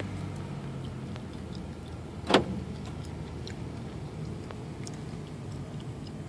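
Car driving slowly, heard from inside the cabin: a steady low engine and road hum. A single sharp knock comes about two seconds in.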